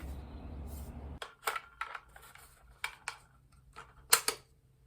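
A series of sharp metallic clicks and clacks from a new rifle and its parts being handled, two loudest close together near the end; a low rumble in the background stops abruptly about a second in.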